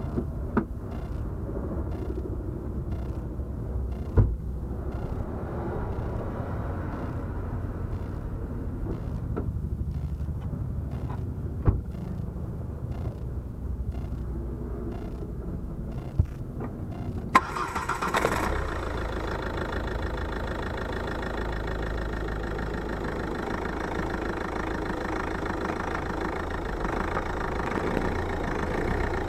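2008 Ford Mondeo Mk4 running, with a low engine and road rumble and a few single sharp knocks from the front suspension. About two-thirds of the way in, the sound turns suddenly brighter and fuller, with a steady hiss added.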